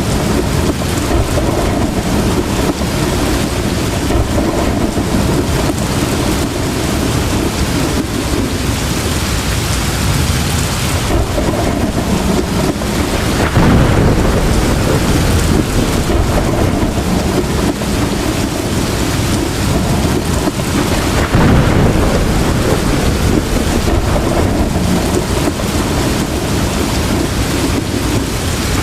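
Heavy rain pouring steadily in a thunderstorm, with deep rolls of thunder swelling up about halfway through and again about two-thirds of the way in.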